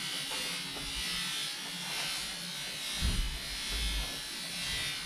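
Steady buzzing hiss of background machinery in a small shop room, with a few low thuds of the handheld camera being moved about three seconds in.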